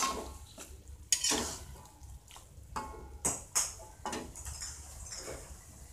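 Metal spatula scraping and knocking against an aluminium wok in irregular strokes as salted squid and green chilies are stir-fried, over a faint sizzle while the sauce cooks down.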